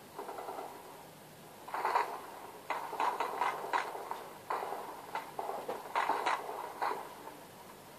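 Gunfire in an exchange of fire: about a dozen sharp, irregular shots over several seconds, with bursts close together in the middle.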